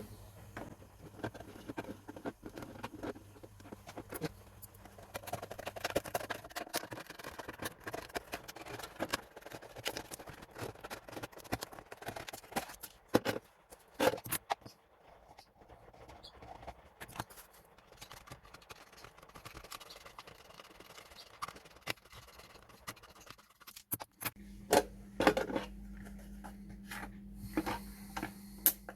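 Hands working plastic bottles for a bird feeder: irregular clicks, taps and scrapes of plastic being handled. A low steady hum comes in near the end.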